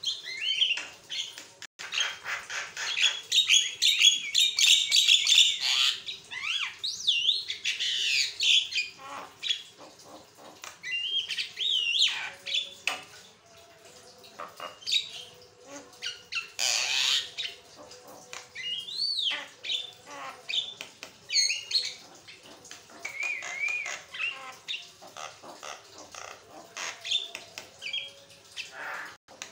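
Javan myna chattering and singing nonstop: a varied run of chirps, whistles and rising and falling glides, busiest in the first few seconds, with one short harsh rasping call about two-thirds of the way through. A faint steady hum lies underneath.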